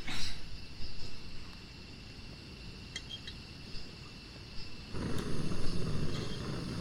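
Crickets chirring steadily in the background. A short burst of noise comes at the start, and a denser, louder low noise, like handling or rustling close to the microphone, sets in about five seconds in.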